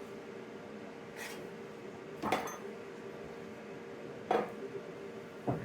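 Four short, sharp metallic clinks and knocks about a second apart, from small metal parts and tools being handled, over a steady faint hum.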